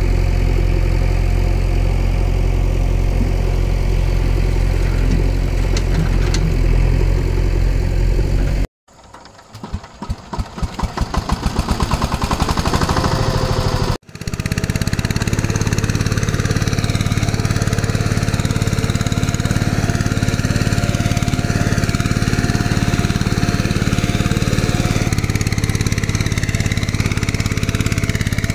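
Engine sound laid over the toy tractor and loader, running steadily until it cuts off abruptly about nine seconds in. Slow chugs then speed up and grow louder as an engine starts and picks up revs. From about fourteen seconds a steady running engine with a thin whine takes over.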